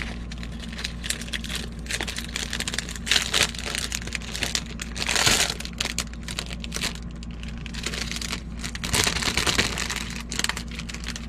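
Clear plastic packaging bag crinkling and rustling as it is handled and opened by hand, in irregular bursts, with a steady low hum underneath.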